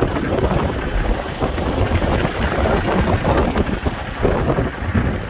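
Strong gusting wind rushing and buffeting, loud and uneven in strength, over the low drone of a moving truck.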